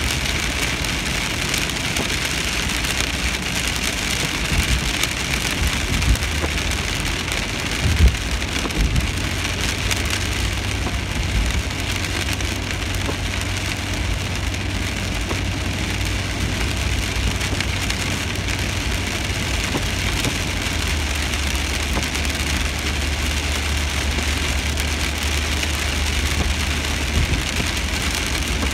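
Rain falling on a car's roof and windshield, heard from inside the cabin as a steady hiss, over the low hum of the car driving on the wet road. A few short knocks come about six and eight seconds in.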